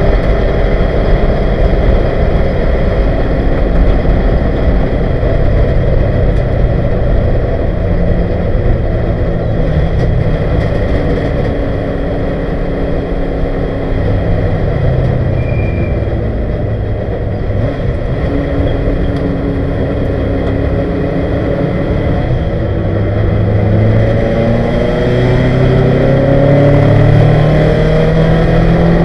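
A 1971 Ford Capri's 2.0-litre race engine, heard loud from inside the cabin, running hard at racing speed. It eases off a little through the middle, then climbs in pitch over the last few seconds as it accelerates.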